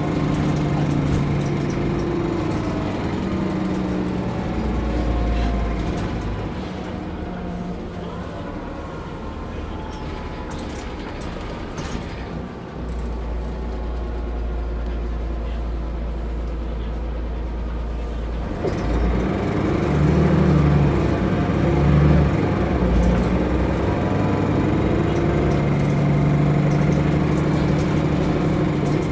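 Interior sound of a Mercedes-Benz O405 GN2 articulated city bus: the diesel engine and ZF automatic gearbox running under way. Partway through, the engine settles into a steady low drone for several seconds, as at idle, then picks up again near the end.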